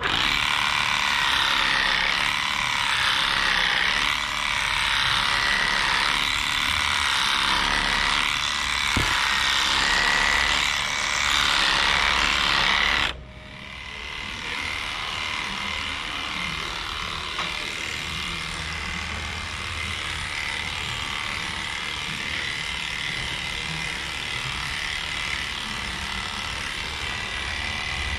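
Heininger Xplorer cordless cattle clipper running steadily as it clips a cow's coat, a constant motor buzz with a steady high whine. It is loud and close for the first half, then drops suddenly about halfway through and carries on quieter.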